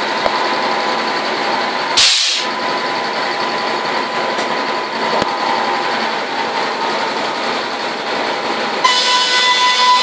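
Sawmill machinery running: a circular saw spinning with a steady whine over the clatter of the bench and feed gear. A short hiss comes about two seconds in, and near the end the whine turns louder and higher.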